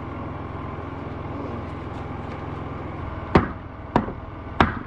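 Three sharp hammer blows about half a second apart near the end, striking a block to beat a stuck SIP wall panel over into its corner.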